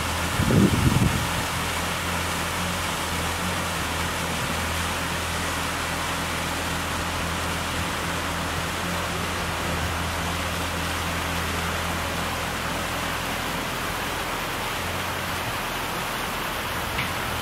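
Many water jets of a large fountain splashing steadily into its basin: a constant hiss with a low hum underneath. A brief low rumble about a second in.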